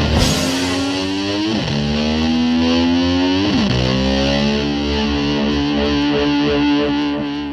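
Distorted electric slide guitar holding long sustained notes, twice diving sharply in pitch and sliding back up, then beginning to fade out near the end. The slide swoops imitate a motor scooter revving.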